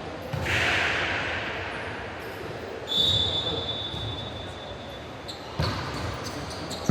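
Indoor basketball game: a ball bouncing on the court with low thuds, a burst of noise about half a second in, and a referee's whistle blown steadily for about two seconds midway.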